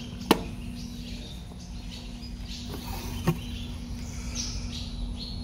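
Impact sockets being handled: a sharp click shortly after the start and two fainter clicks about three seconds in, over a steady low hum and faint high chirping.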